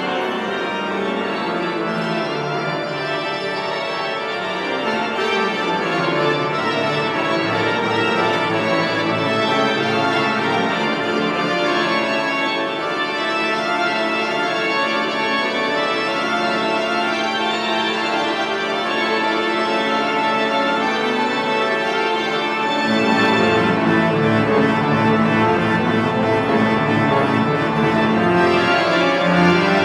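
Church organ playing slow, sustained chords, with a fuller, louder bass coming in about three quarters of the way through.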